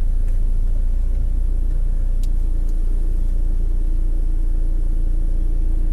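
A car's engine running steadily, heard from inside the cabin as an even low rumble, with a faint sharp click a little past two seconds in.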